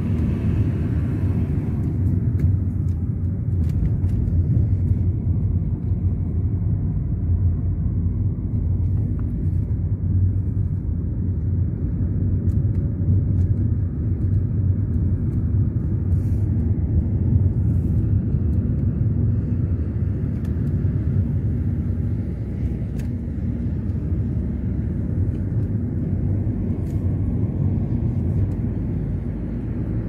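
Car driving at a steady pace: an even, low rumble of road and engine noise heard from inside the cabin.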